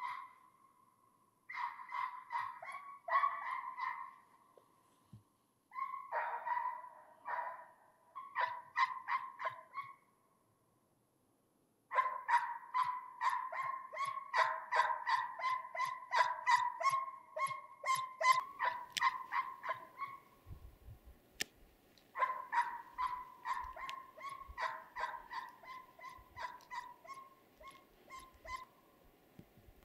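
Drever hound baying on a hare's trail, giving tongue in runs of sharp barks about two to three a second. The runs break off now and then, with a silent pause of about two seconds about a third of the way in.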